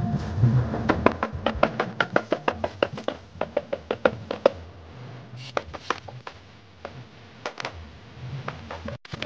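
A quick, irregular run of sharp knocks and taps, several a second for about four seconds, then only a few scattered ones, over background music.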